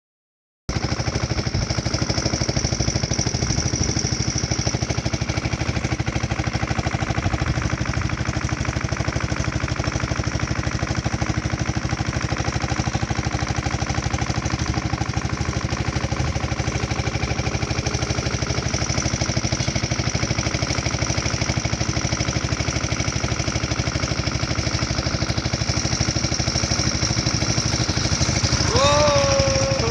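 A boat's motor running steadily with an even, rapid chugging. Near the end a short voice call is heard over it.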